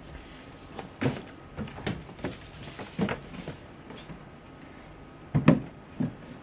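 Large cardboard gift box being slid out of a stiff paper shopping bag and handled: a series of scraping rustles and hollow knocks, with the loudest two thumps near the end as the box is tipped over.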